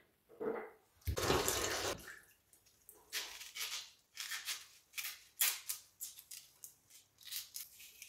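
A kitchen knife scraping the papery skin off a red onion: a string of short, dry scrapes about twice a second. Before them, near the start, a brief rush of water from the sink tap.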